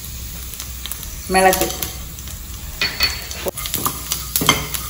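A metal spoon stirring and scraping whole spices (cumin, fennel, cinnamon, cloves, cardamom and peppercorns) as they roast lightly in a little oil in a small pan, with a faint sizzle. Scrapes and clicks of the spoon on the pan come mostly in the second half.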